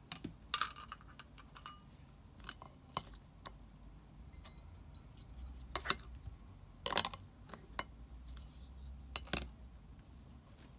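Plastic salad servers tapping and clinking against a salad bowl in scattered light knocks, the last of them as the servers are laid on the bowl's rim.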